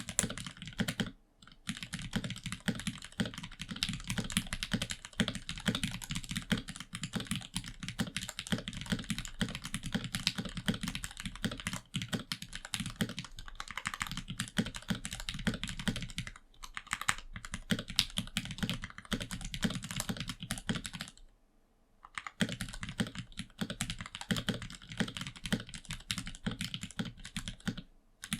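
Typing on a custom 65% gasket-mount mechanical keyboard (ZTboards After) with Gateron Ink Black linear switches lubed with Krytox 205g0, holee-modded Durock stabilizers and GMK keycaps: a fast, steady run of keystrokes with brief pauses, the longest about two-thirds of the way through. The board has no rubber feet, so it sits directly on the desk.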